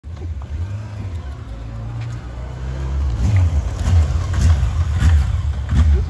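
2005 Yamaha FJR1300's inline-four engine with the factory exhaust, running as the motorcycle rides up and passes. It gets louder over the first few seconds.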